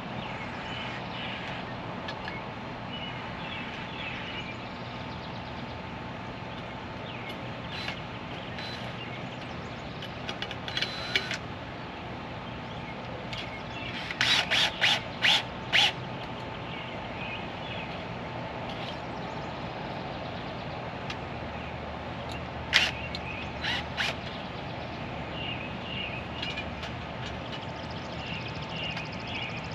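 Outdoor background with birds chirping, broken by a few short, sharp knocks or clatters, the loudest a run of five quick strokes in the middle.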